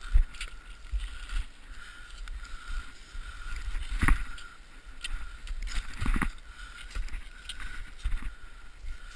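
Wind and handling rumble on an action camera's microphone, with scattered knocks and scuffs as the wearer moves; the loudest knocks come about four and six seconds in. A faint steady high hum sits underneath.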